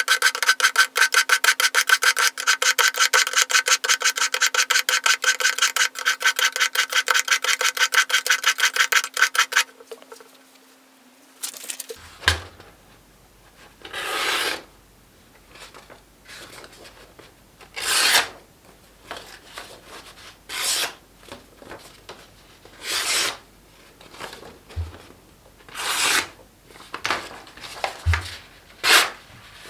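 Kitchen knife drawn rapidly back and forth through the slots of a ceramic knife sharpener, a quick, even rasping rhythm of about five or six strokes a second that stops about ten seconds in. After that come single scraping strokes a few seconds apart, with a couple of soft thuds.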